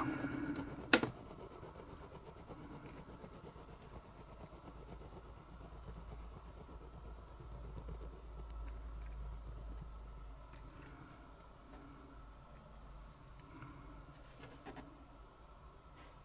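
Faint scattered clicks and taps of small parts and tools being handled, with one sharper click about a second in. Under them runs a low rumble that swells in the middle and then fades.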